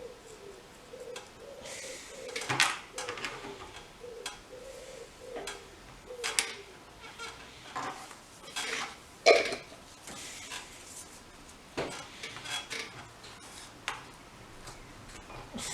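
Light clinks, taps and sharp knocks of small tools and objects handled on a workbench while a circuit board is cleaned with alcohol, the loudest knock about nine seconds in. A pigeon or dove coos faintly through the first few seconds.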